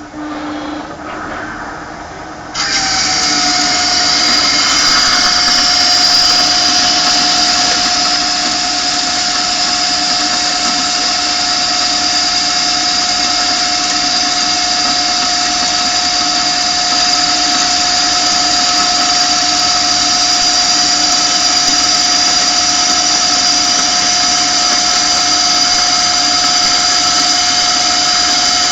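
Okuma lathe turning a 200 mm workpiece at 5 mm depth of cut. The machine runs quieter for about two and a half seconds, then the tool bites in suddenly and the cut runs loud and steady with a constant high whine.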